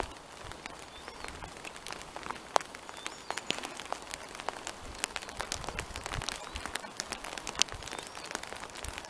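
Light rain: irregular raindrop taps, a few of them sharp and louder, over a faint steady hiss.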